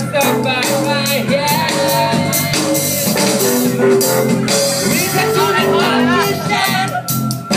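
Live band playing, with a male singer at the microphone over regular drum hits and guitar.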